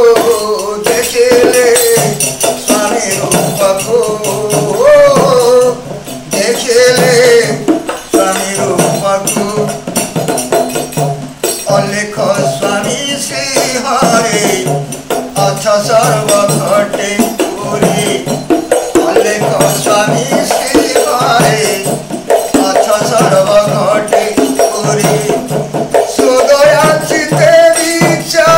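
A man singing a Mahima Alekh devotional bhajan in Odia, accompanied by a khanjani frame drum and small hand cymbals played in a quick, steady rhythm.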